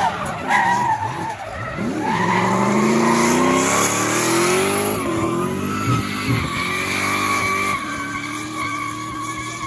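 Drift car's engine revving hard with its rear tyres spinning and screeching through a smoky drift. The engine pitch swoops up and down, then climbs steadily for a few seconds, and the sound eases off near the end as the car moves away.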